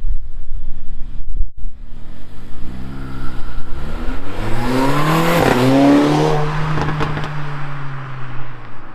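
Mercedes-AMG CLA 45's turbocharged four-cylinder engine revved once: the pitch climbs for a few seconds with a burst of hiss at the top, drops back, then settles to a steady lower note. The engine breathes through a K&N performance air filter, which makes the turbo only slightly more audible.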